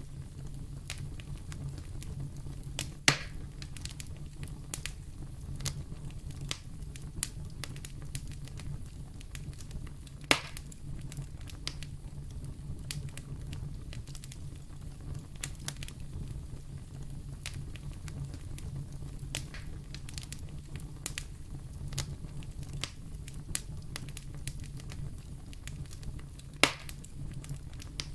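Wood fire burning in a fireplace: a steady low rumble under constant small crackles, with three loud sharp pops spread through it.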